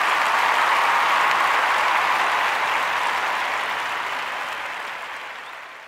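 Crowd applause, a dense even clapping that fades away toward the end.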